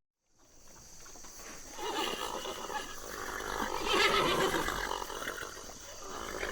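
Horse neighing: a shaky, pitched whinny that swells up about a second in and peaks again around four seconds, after a brief silence at the start.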